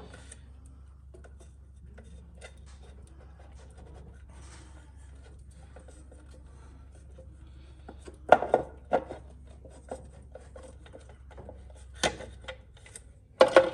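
Hand work on car engine parts during reassembly: scattered light clicks and scrapes of parts and tools being handled, with a few louder knocks and clatters about eight, twelve and thirteen seconds in.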